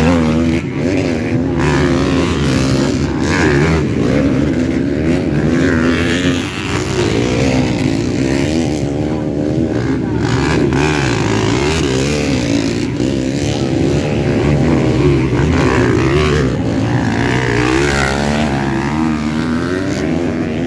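Four-stroke 250cc motocross bikes revving as they ride past on a muddy track, engine pitch rising and falling as the riders work the throttle.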